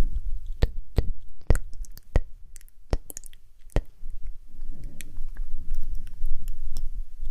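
A series of sharp, irregularly spaced clicks over the first four seconds, followed by a softer, low rustling noise.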